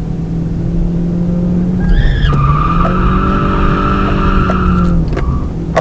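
Toyota Altezza's engine running steadily, then about two seconds in its Nankang NS-2 tyres break into a long steady squeal as the car slides, lasting about three seconds before stopping shortly before the end.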